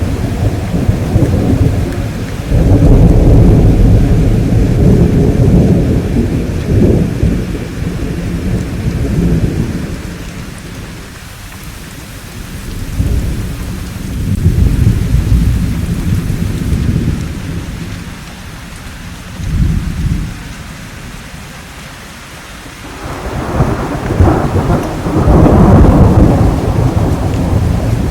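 Thunderstorm: rolling thunder rumbling in long, deep swells over steady rainfall, with the loudest peals about three seconds in and again near the end, and the thunder easing for short stretches in between while the rain carries on.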